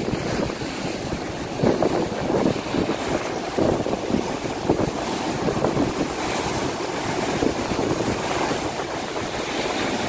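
Storm-driven sea surf breaking and washing over a rocky breakwater, a continuous rush of water with several louder surges as waves hit the rocks.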